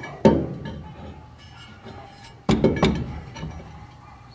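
Steel rack bracket knocking and clanking against the trailer as it is handled and shifted into place: one knock about a quarter second in, then a cluster of sharper clanks about two and a half seconds in.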